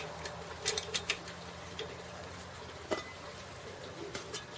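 A few scattered light metallic clicks and taps as a coffee-can windscreen and a lidded steel pot are handled on a small camp stove.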